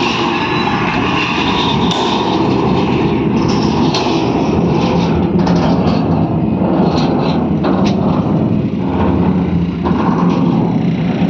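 Heavy tipper truck's diesel engine running steadily, with a few scattered knocks over it.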